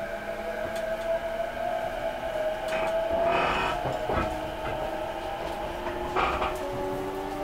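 Electric commuter train heard from inside the car while running: a motor whine rising slowly in pitch as the train gathers speed, over the rumble of the wheels, with clattering knocks about three seconds in and again about six seconds in.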